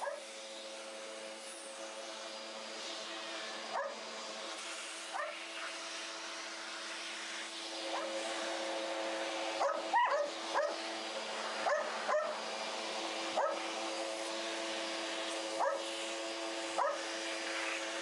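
A dog barking in short sharp barks, about a dozen times and more often from about halfway through, over the steady hum of a running vacuum cleaner.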